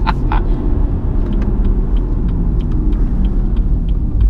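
BMW M140i's 3.0-litre turbocharged straight-six engine running on the move, heard inside the cabin as a steady low-pitched drone mixed with road and tyre noise.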